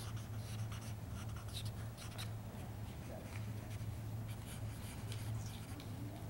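Marker pen strokes on paper: quick, irregular scratchy squeaks as the marker is worked back and forth across the drawing board, over a steady low hum.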